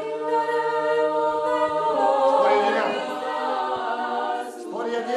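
Dalmatian klapa singing: several voices a cappella in close harmony, holding long chords that change about two seconds in.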